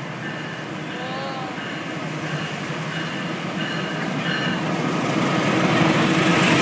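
A CC 206 diesel-electric locomotive and its train approach and run alongside the platform, the rumble of engine and wheels growing steadily louder. A short high beep repeats about twice a second through most of it.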